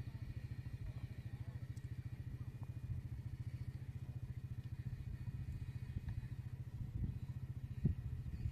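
An engine running steadily with a fast, even pulse, with a few sharp knocks near the end.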